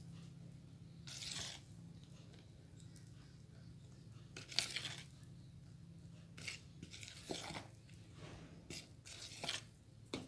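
Silicone spatula scraping and folding thick brownie batter against the sides of a plastic bowl: faint, irregular wet scrapes, a few sharper strokes among them, over a low steady hum.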